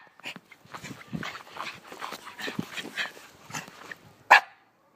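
Shiba Inu puppy making short whines and yips, a few a second, with one sharp, much louder sound about four seconds in.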